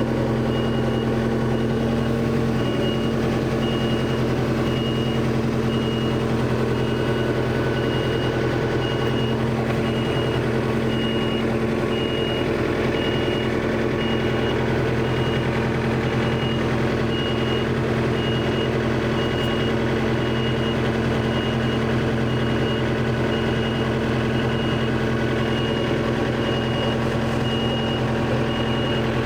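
Engine of the John Deere backhoe machine idling steadily, with an electronic warning beeper sounding evenly a little more than once a second.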